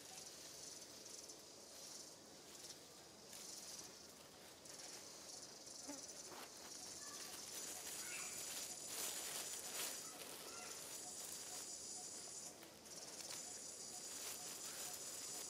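Faint high-pitched buzzing of forest insects, a rapid pulsing drone that swells and fades several times, with a few scattered light clicks and rustles.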